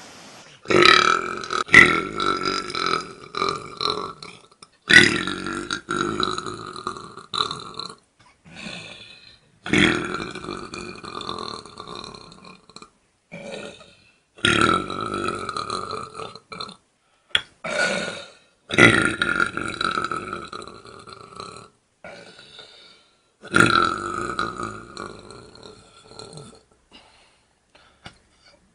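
A run of long, drawn-out belches from men, about six of them, each lasting two to three seconds with a pitch that drops at the start, separated by short pauses and a few brief burps.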